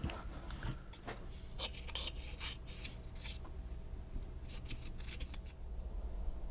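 Light scraping and rubbing with short clicks, coming in quick clusters, from hand work at a workbench; they stop about a second before the end.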